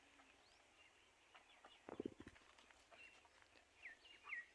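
Near silence on a farm, with a few faint high falling bird chirps in the second half and a brief low cluck-like call about two seconds in.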